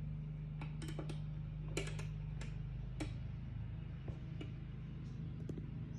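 A steady low hum with about a dozen light, irregular clicks and taps over it.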